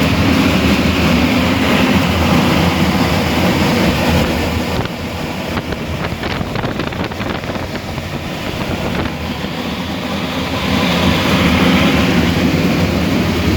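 Industrial bartack sewing machine running with a loud, dense mechanical clatter. It eases off for a few seconds midway, with a few sharp clicks, then runs at full level again.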